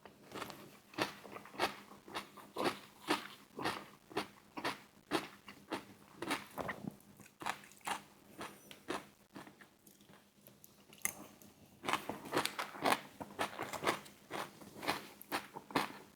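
Close-miked crunching and chewing of crispy fried chicken wings, about two crunchy bites or chews a second, growing busier and louder about two-thirds of the way through.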